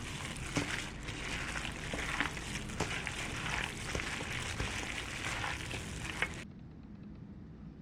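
Food sizzling in a hot frying pan, with scattered sharp clicks; the sizzle cuts off abruptly about six and a half seconds in.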